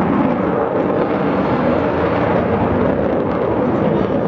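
Steady, loud rumble of the jet engines of a twin-engine Sukhoi Su-27-family (Flanker) fighter manoeuvring overhead.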